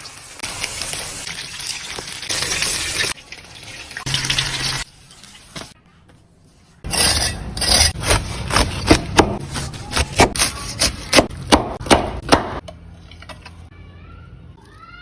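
Meat rolls frying in hot oil: a hissing sizzle, then after a short lull about six seconds of dense, sharp crackling pops over the sizzle.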